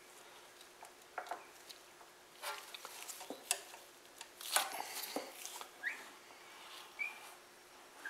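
Gloved hands working a vise grip on the crankshaft of an opened Tecumseh engine: quiet, irregular clicks, scrapes and metal clinks from the oily gears, with two short squeaks. The cam and crank gears are binding and will not turn freely.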